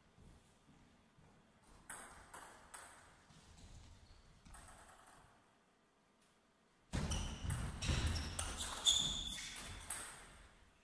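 Table tennis rally: the celluloid ball is struck back and forth by rubber-faced bats and bounces on the table, making a quick series of sharp clicks that starts about seven seconds in. A few single taps of the ball come a couple of seconds in.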